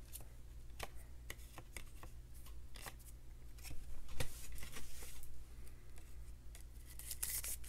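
Soft plastic rustling and light clicks of a trading card being slid into a penny sleeve and then into a rigid plastic toploader, with a denser run of clicks near the end. A faint steady low hum underneath.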